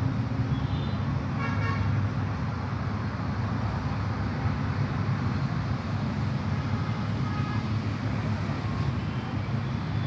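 Steady rumble of road traffic, with a brief vehicle horn toot about one and a half seconds in and a fainter one near the end.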